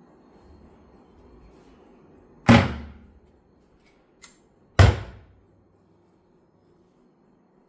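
Kitchen cabinet doors being shut: two sharp knocks a little over two seconds apart, with a light click between them.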